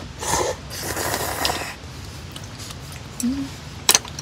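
Slurping of ramyeon broth drunk from a metal camp bowl: two noisy slurps in the first couple of seconds, then a brief low hum and a sharp click near the end.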